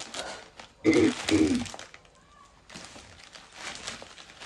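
Packaging crinkling and rustling as items are handled during an unboxing, with a short loud vocal sound about a second in and a brief lull around the middle.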